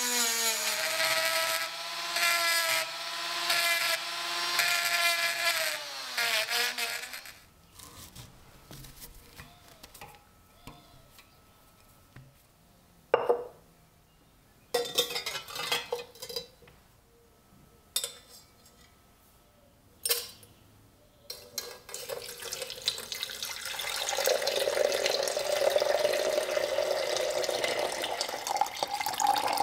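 Rotary multitool spinning a pink abrasive grinding stone against rusty iron, its motor whine rising and falling in pitch under load until it stops about 7 s in. Then a quiet stretch with a few short sharp clinks and knocks, and from about 21 s water pouring into a glass beaker.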